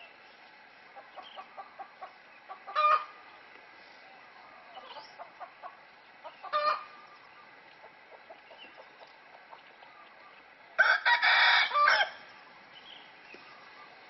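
Rooster with soft, rapid clucking, two short sharp calls, then one loud crow lasting about a second near the end.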